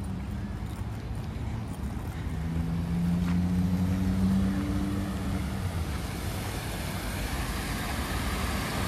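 A motor vehicle's low engine rumble and hum, swelling about three seconds in and fading after five, with a growing rushing hiss toward the end.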